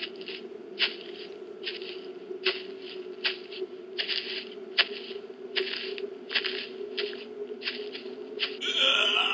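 Slow, evenly spaced crunching footsteps, about one every 0.8 seconds, over a low steady eerie drone. A high wailing scream starts near the end.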